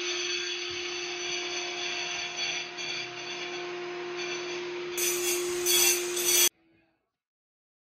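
A power tool's motor running steadily with a constant hum. About five seconds in it is joined by a louder, harsher noise, and then it all cuts off suddenly.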